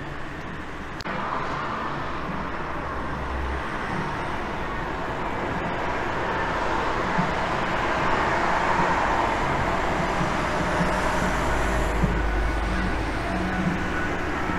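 Steady outdoor rushing noise, the kind heard from road traffic, that swells gradually to its loudest about eight to twelve seconds in. Low wind rumble sits on the microphone at times.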